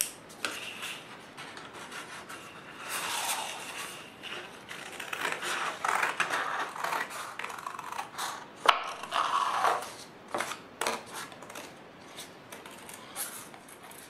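Construction paper rustling and rubbing against watercolor paper as a cut-out paper stencil is handled and positioned, busiest in the middle stretch, with small clicks and one sharp click about nine seconds in.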